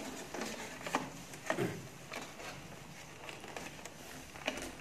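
Faint plastic clicks and knocks from handling the humidifier water chamber and corrugated breathing tube of a high-flow nasal cannula machine, a few separate taps spaced irregularly.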